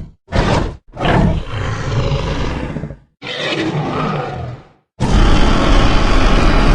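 Film dinosaur roar sound effects for the Spinosaurus, four separate calls with short gaps between them. A brief one comes first, then two longer roars, and the loudest, longest roar begins about five seconds in.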